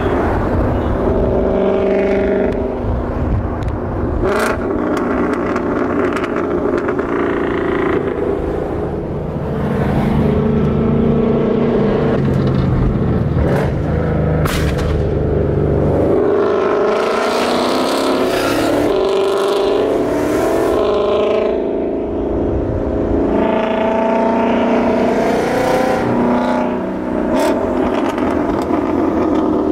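Ford Mustang GT 5.0 Coyote V8 running loud through its exhaust, its pitch rising and falling several times as it accelerates, shifts and eases off. A few sharp cracks stand out along the way.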